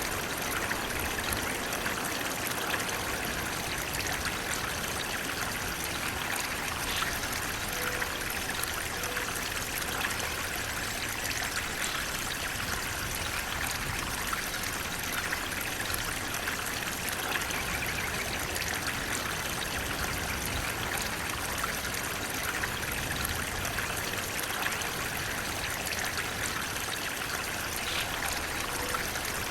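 Flowing water making a steady, even rushing sound without a break.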